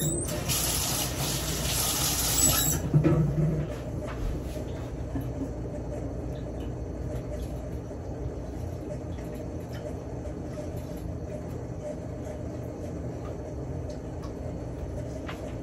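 Water running from a kitchen tap as a steady hiss for about two and a half seconds, then a single clunk about three seconds in. After that only a low steady hum remains.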